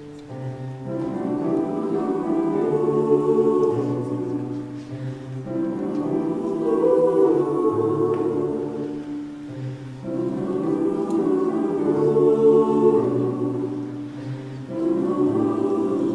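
Show choir singing held chords in a slow passage, in four swelling phrases of about four seconds each.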